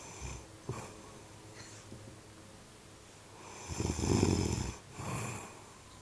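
A woman snoring in her sleep: one loud, gargling snore lasting about a second, starting just before four seconds in, followed by a shorter, softer breath.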